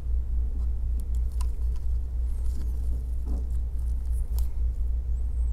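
Steady low hum throughout, with a few faint small clicks and taps as gloved fingers press tiny Wi-Fi antenna connectors onto a laptop's logic board.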